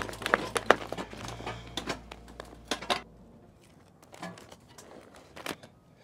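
Crinkling and tapping of foil-faced duct insulation and foil tape being handled and pressed around a sheet-metal tap collar. The sounds come thick and fast for about three seconds, then turn sparse, with a few isolated taps.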